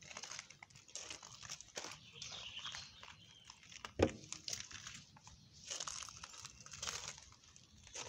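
Faint rustling and crunching noises, with one sharp knock about four seconds in.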